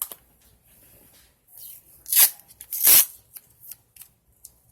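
Paper being handled for collage journaling: a run of short rustles and crinkles, with two louder rustles about two and three seconds in.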